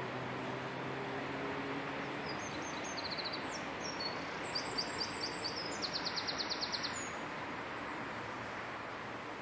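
A small songbird singing a phrase of high, quick chirps and fast trills from about two and a half to seven seconds in, over a steady outdoor background hiss. A low hum fades out about two seconds in.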